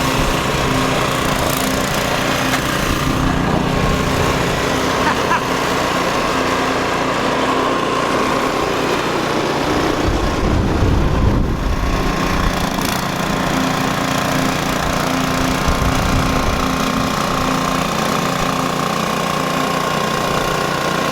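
A small engine running steadily at one constant speed.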